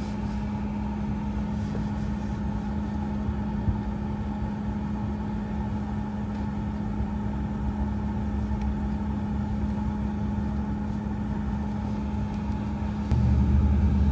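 De Havilland Canada Dash 8 Q400 turboprop engines and propellers running, heard from inside the cabin as a steady drone with one strong hum over a low rumble and hiss. Near the end it suddenly becomes louder, with a much heavier low rumble.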